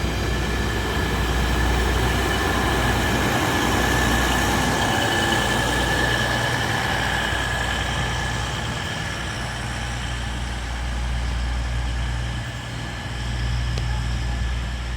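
Diesel locomotive engine running with a steady low rumble as the train departs, with a faint steady high tone over it, strongest about five to seven seconds in.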